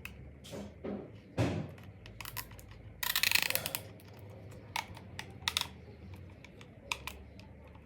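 Scattered small clicks and taps from handling work, with a louder rasping scrape lasting under a second about three seconds in.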